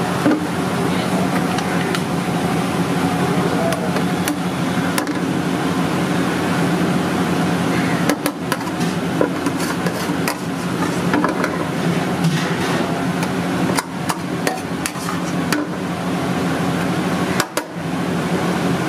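Busy street-food kitchen ambience: a steady hum with murmured background voices, broken by scattered sharp knocks and clanks a few times.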